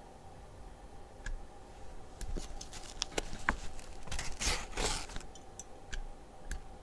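Light metallic clicks and scrapes of tweezers working against vape coils on a Coil Master 521 Mini tester as the coils are pulsed. The loudest is a short scrape about four and a half seconds in.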